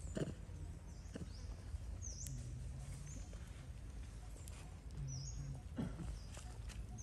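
Short high chirps of a small bird, repeating every second or so, with a few soft knocks scattered among them.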